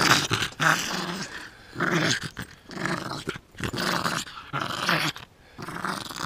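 Yorkshire terrier growling in play while mouthing and tugging at a man's forearm. The growls come as a string of short rumbles, one after another, with brief breaks between them.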